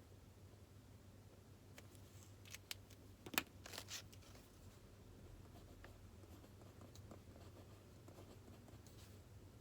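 Quiet room with a steady low hum; about two seconds in, a short run of small clicks and rustles from items handled at a desk, the loudest a single sharp click.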